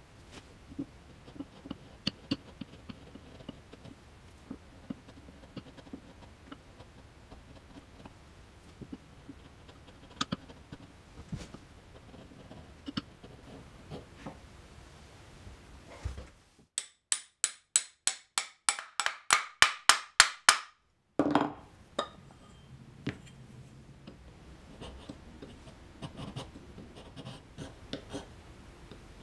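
A chisel and a thin blade scraping and paring the wooden body of a Japanese hand plane, giving scattered light scrapes and clicks. Just past the middle comes a run of about a dozen sharp knocks, about three a second, growing louder.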